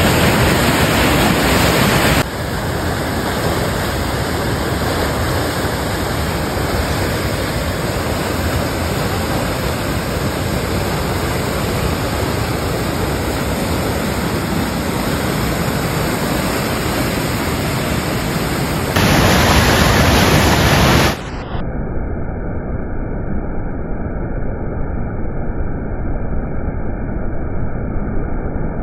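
Floodwater rushing in a swollen, muddy, debris-laden river: a loud, steady rushing noise. It grows louder for about two seconds at the start and again about twenty seconds in, and turns duller after that.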